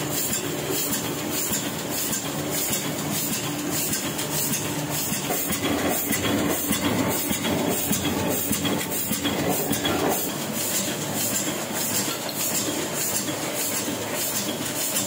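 Small sheet-fed offset printing press running, its rollers, belt drive and sheet feeder making a steady rhythmic mechanical clatter.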